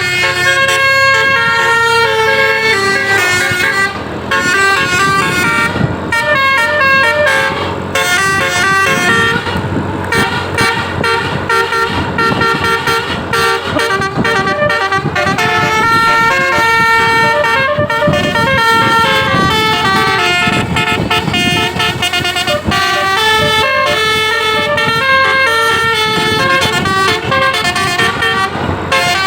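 A bus's Basuri-type telolet musical horn plays a quick, jumping melody of steady notes, over and over, with road-vehicle noise underneath.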